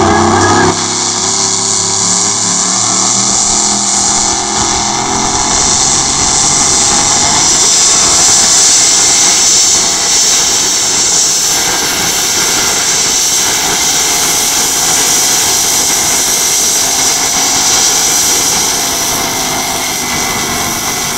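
A pulling vehicle's engine running flat out under heavy load as it drags a weight-transfer sled, a loud, steady, unbroken racket that dips slightly about halfway through and eases a little near the end.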